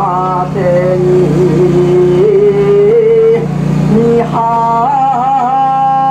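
A man singing an ondo-age festival chant in long held, wavering notes with vocal ornaments: a lower phrase first, then a jump to a high held note about four seconds in.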